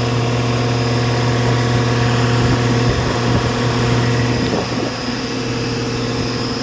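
Rheem central air conditioner outdoor condensing unit running: a loud, steady, low compressor hum with the condenser fan, during the system's first start-up of the cooling season.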